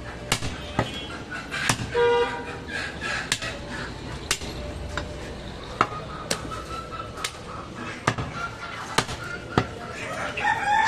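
Heavy butcher's cleaver chopping goat meat on a wooden log chopping block: a dozen or so sharp chops at uneven intervals.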